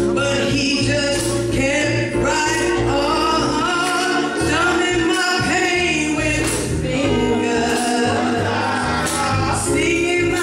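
A woman singing into a microphone with a live band: sustained keyboard chords and bass notes under her voice, with congas.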